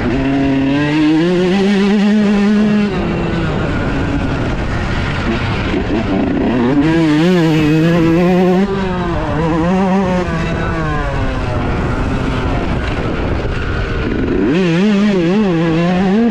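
2018 Yamaha YZ125's 125 cc two-stroke single-cylinder engine under hard riding, its revs climbing and dropping again and again as the throttle is worked.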